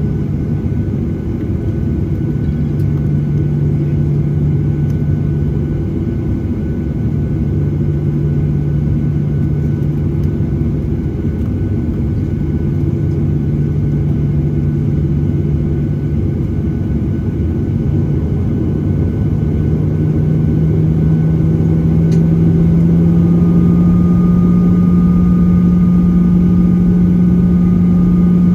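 Boeing 737-800's CFM56-7B turbofan engines at taxi power, heard inside the cabin over the wing as a steady low hum. About two-thirds in the hum rises a little in pitch and gets louder as the engines spool up slightly, and a thin higher whine joins near the end.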